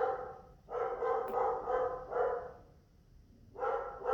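Pet dog barking: a quick run of about five barks, a pause of over a second, then barking again near the end.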